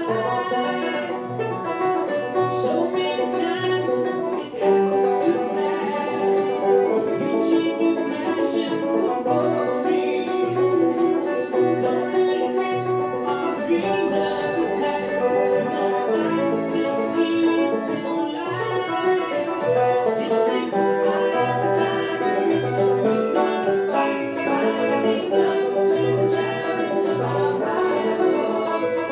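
Five-string banjo picked in bluegrass style over a backing track, with bass notes that repeat evenly beneath the fast picked notes.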